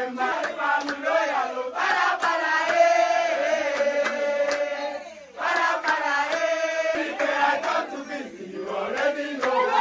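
A group of men singing a worship song together in chorus, clapping along. The singing breaks off briefly about halfway, then resumes.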